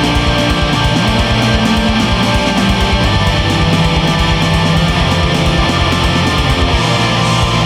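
Death metal music: distorted electric guitars over a rapid, pounding low drum pulse, loud and unbroken, with no vocals.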